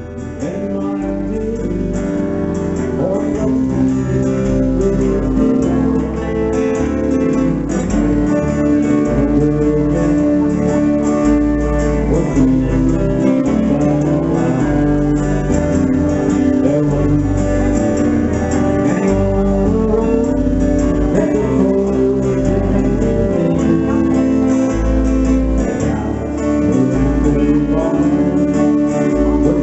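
A small live band playing a country tune on two strummed acoustic guitars, an electric bass and an electric lead guitar. The music swells up in the first couple of seconds, then runs on steadily.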